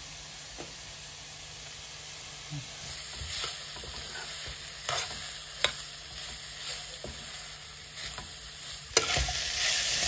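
Pork pieces with onion and spice paste sizzling in a steel kadai while a metal spoon stirs them, knocking and scraping on the pan with scattered clicks. The sizzling and stirring get louder about nine seconds in.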